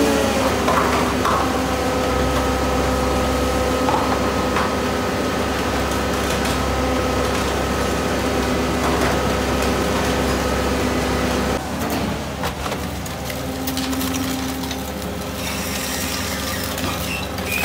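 Lefort tracked mobile scrap shear-baler running: its diesel engine and hydraulic pumps make a steady hum with a held whine, with a few faint metal knocks. About two-thirds of the way in the sound drops a little and the deep part of the hum thins out.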